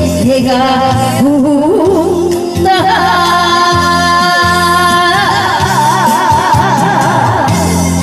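A female singer singing into a microphone over a recorded backing track played through a PA speaker, with a steady bass beat. A few seconds in, long steady held notes sound under a wavering melody line.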